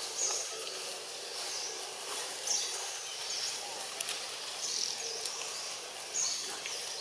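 Outdoor background noise with a bird giving a short high call over and over, about every second or two, and a couple of faint clicks partway through.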